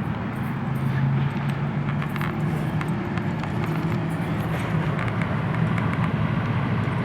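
GE central air-conditioner's outdoor condenser unit running, a steady hum over the even rush of its fan.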